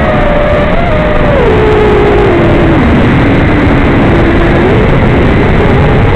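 Brushless motors of a 5-inch FPV racing quadcopter (2206, 2522 kV) whining under a heavy rushing noise. The pitch steps down over the first three seconds as the motors slow, holds low, then rises again near the end.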